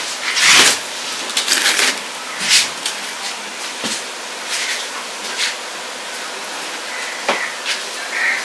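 Large seer fish being set down and shifted on crushed ice in an insulated box: a loud knock and scrape of ice about half a second in, then several shorter knocks and scrapes, over a steady background hiss.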